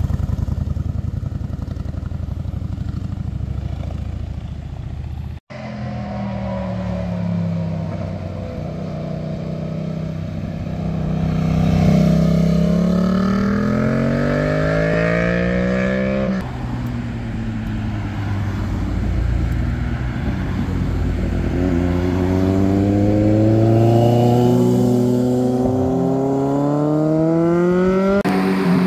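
Motorcycle engines on a winding road, heard from the roadside in several short clips. First a low rumble as a cruiser rides away, then motorcycles accelerating out of the bends, each engine note rising steadily with the revs. The sound cuts off abruptly between clips, about five seconds in and again about sixteen seconds in.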